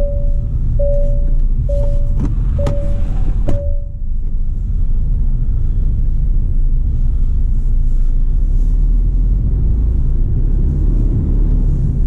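Low steady rumble of a Mercedes Actros lorry's diesel engine and tyres heard from inside the cab. For the first few seconds a single-pitched electronic chime repeats about once a second, with a few sharp clicks, and the chime stops about four seconds in.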